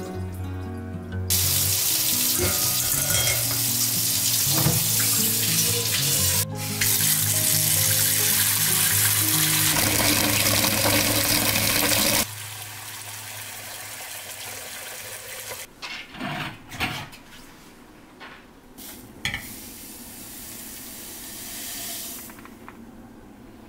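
Tap water running hard into a stainless steel pot, a loud steady splashing hiss that stops abruptly about halfway through. After it, a few short knocks of the metal pot being handled.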